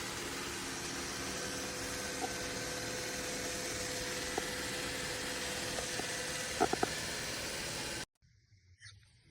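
Robot vacuum running, a steady fan hiss with a faint hum, with a few quick clicks near the end; the sound cuts off suddenly about eight seconds in.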